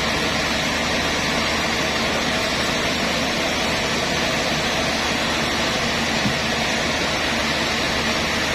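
Sawmill machinery running steadily: a constant engine hum under an even hiss, with no change in load.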